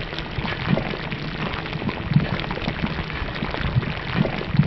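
A steady, rain-like hiss dotted with irregular crackles and low thumps, ending abruptly.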